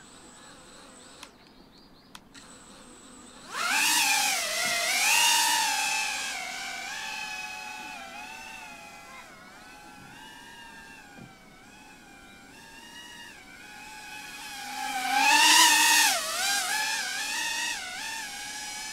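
Cinelog35 FPV cinewhoop drone's motors and propellers whining, spooling up suddenly about three and a half seconds in for takeoff. The pitch rises and falls with the throttle, loudest just after takeoff and again near the end.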